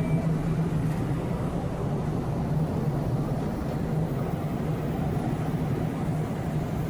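Train running, heard from on board: a steady low rumble with a constant hum.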